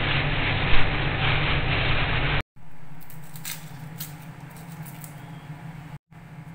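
A plastic bag rustling and crinkling as hands dig shallots out of it, cut off abruptly about two and a half seconds in. After that come quieter scraping and small clicks as shallots are peeled with a paring knife over a plastic cutting board, over a steady low hum.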